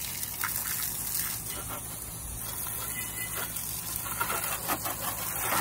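Garden hose spraying water onto a riding lawn mower's wheels and deck and splashing on paving stones: a steady spray.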